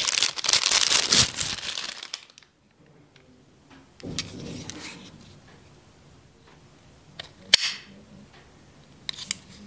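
Thin plastic packaging bag crinkling for about two seconds as a two-way radio battery is slid out of it. Then quiet handling of the hard plastic battery, with one sharp click about seven and a half seconds in and two lighter clicks near the end.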